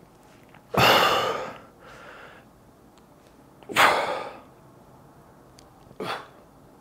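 Three forceful breaths out while flexing through bodybuilding poses: a long one about a second in followed by a softer breath, another near four seconds, and a short one about six seconds in.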